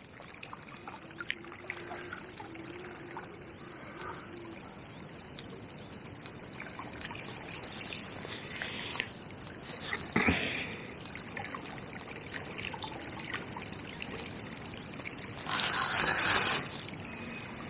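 Fixed-spool reel on a feeder rod giving sharp single clicks about once a second while a hooked barbel is played, over the steady wash of river water. Two louder noisy bursts come about ten seconds in and again near the end.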